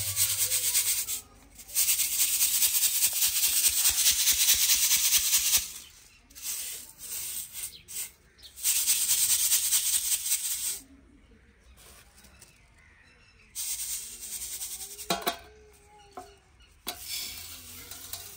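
Dry fenugreek seeds being shaken and sifted in a sieve, a hissing rattle. It comes in three spells: a long one of about four seconds near the start and two shorter ones later.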